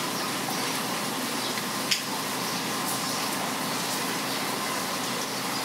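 Steady rain falling on a wet street, an even hiss, with one sharp tick about two seconds in.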